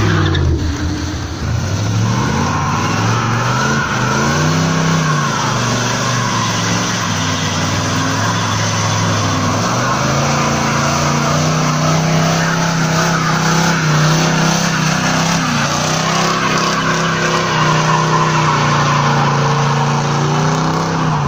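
Van engine revving hard with the rear tyres spinning and squealing on the asphalt in a smoky burnout. The revs rise and fall over the first few seconds, then hold high and steady for the second half.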